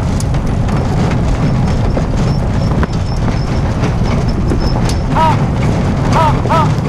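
Wheeled dog-sled cart rolling fast over a gravel road behind a running sled-dog team, a steady low rumble. From about five seconds in, short rising-and-falling squeaks repeat about three times a second.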